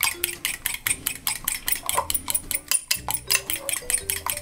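Metal fork whisking beaten egg in a ceramic bowl, the tines clicking against the bowl in a fast, even rhythm of about seven strokes a second, with a brief pause near three seconds in.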